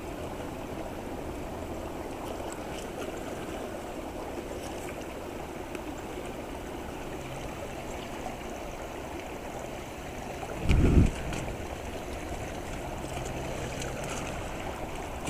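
Steady rushing of creek water, with a faint low hum coming and going. About eleven seconds in there is one brief, loud low thump.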